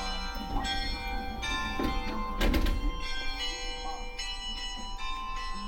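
Repeated bell-like ringing tones over a steady low rumble, with one loud thump about two and a half seconds in.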